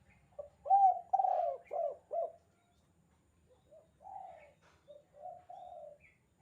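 Spotted dove (tekukur) cooing its 'kuk 2' call. A loud run of about five arching coos comes in the first two seconds, then, after a short pause, a quieter series of coos follows.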